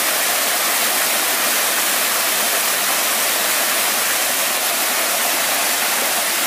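Small rocky stream rushing and splashing over a low cascade close by, a steady, loud hiss of running water.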